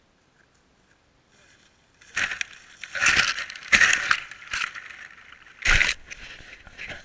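Dry sticks and brush crunching and rustling close to the camera, in several loud bursts starting about two seconds in, as the camera is disturbed in a brush pile.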